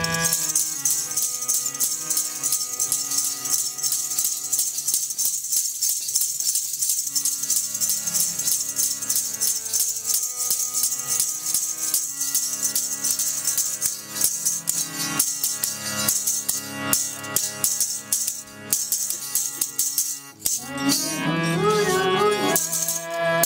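Sikh kirtan music: a harmonium holding steady notes under a fast, continuous jingling rattle rhythm. A singing voice comes in about 21 seconds in.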